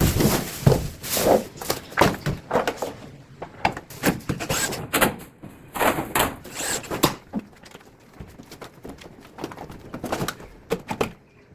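Irregular knocks, clicks and clattering of hands-on air-conditioner installation work: parts and tools being handled and set down. The knocks come thick in the first half and thin out toward the end.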